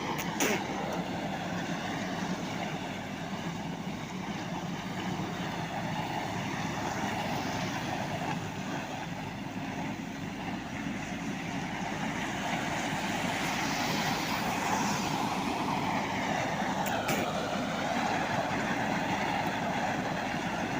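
JCB 3DX backhoe loader's diesel engine running steadily as the machine works, with two sharp clanks, one just after the start and one about three-quarters of the way through.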